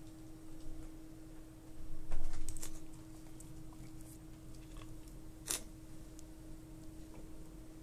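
Close rustling and brushing against a handheld phone's microphone, loudest about two seconds in, with a few sharp clicks, over a steady hum.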